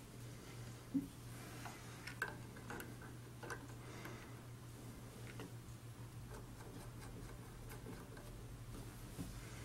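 Scattered small clicks and taps of fingers handling a Greist hemmer attachment and the needle on a sewing machine, with one sharper knock about a second in, over a steady low hum.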